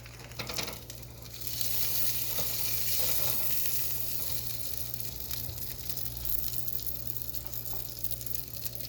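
Sausages frying in butter in a pan, sizzling steadily and growing louder about a second and a half in, with a few light knocks near the start.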